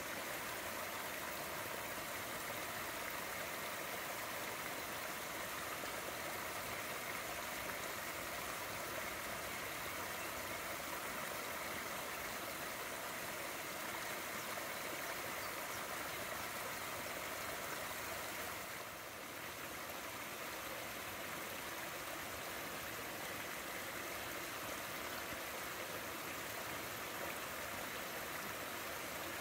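Water pouring over a small weir in a shallow stream, a steady rushing splash.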